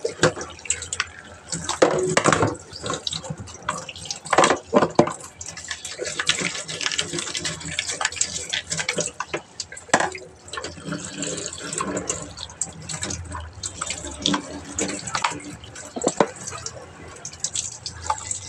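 Tap water running over a washing machine's lint filter as it is rinsed clean, with irregular knocks and clatter from handling it.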